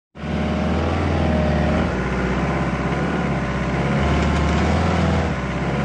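Toyota Hilux ute's engine running steadily as it drives, its note rising and falling slightly.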